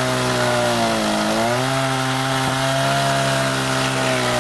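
Echo pole saw cutting through a weathered log beam, its motor running steadily. About a second in the pitch dips briefly as the chain bites, then picks back up.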